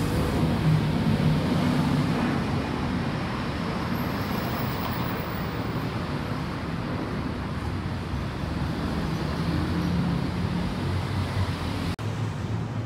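Motor traffic on a road, with a steady engine hum and wind on the microphone. The sound cuts out briefly near the end.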